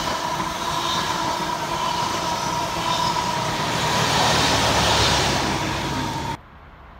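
Locomotive-hauled passenger train running through at speed: a steady rumble of wheels on rail with a high steady whine. It gets louder as the locomotive at the rear goes by, then cuts off suddenly near the end.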